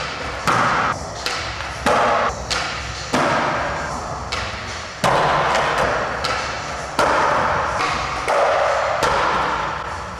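Skateboard wheels and deck on smooth concrete: several sharp clacks of the board landing, each followed by the hiss of the wheels rolling, echoing in a large indoor hall.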